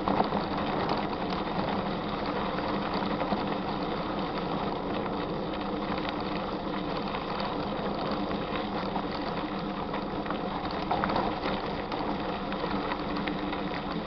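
Mountain bike rolling along a dirt road, heard from on the bike: a steady rattling and crunching from the tyres on the gravel and the bike's parts, with many fine clicks.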